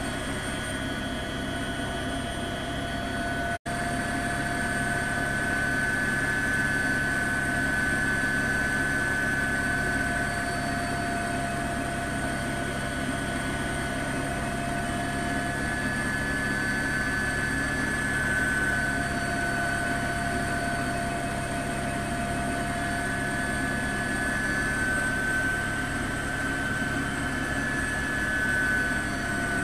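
Helicopter running steadily overhead, heard from on board: a constant engine whine over rotor and wind noise, with a momentary dropout about three and a half seconds in.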